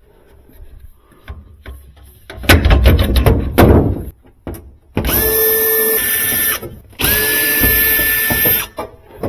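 A handheld power drill/driver runs twice for about a second and a half each time with a steady whine, backing out screws while a refrigerator is being taken apart. Before it come a few seconds of clattering knocks as parts are handled.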